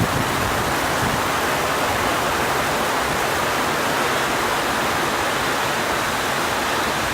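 Heavy rain falling, a steady, even downpour hiss.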